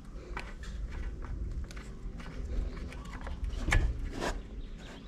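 Recoil starter of a Honda GX35-clone four-stroke grass cutter engine pulled over by hand without firing: rope rasping and the starter clicking, with a stronger pull a little under four seconds in. The new engine is being turned over to work its fresh oil onto the bearing and piston before the first start.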